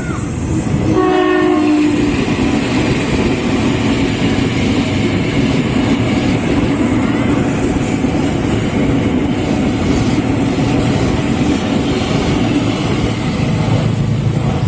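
A train passing at speed: a short horn blast about a second in, then the steady loud rumble and rush of the train going by, with wheels clacking over the rail joints.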